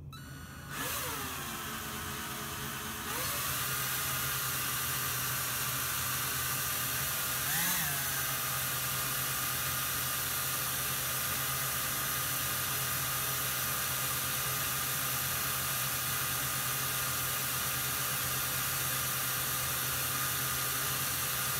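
Cordless drill motor running steadily as it spins a length of wire to twist it. It starts at a slower speed, then steps up to a faster, higher whine about three seconds in, with a brief rise in pitch near eight seconds.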